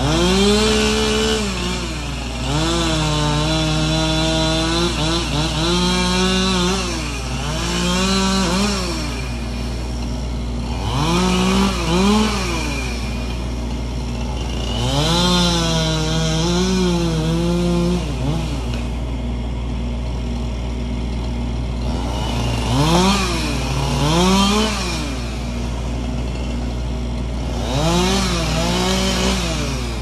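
Chainsaw revving in about eight bursts of throttle, each one to four seconds long, its pitch climbing and dropping, with short pauses between. A steady low hum runs underneath.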